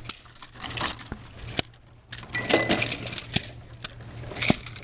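Sharp cracks, four or so, with rattling and feet scuffing on dirt between them: noise made by decoys running past with a stick and a shaken sack to distract a dog holding a sit.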